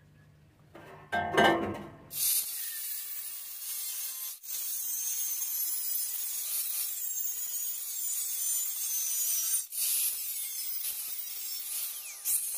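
Angle grinder with a cutting disc slicing through thin sheet metal: a steady, high, hissing screech that breaks off briefly twice. It follows a short loud noise about a second in.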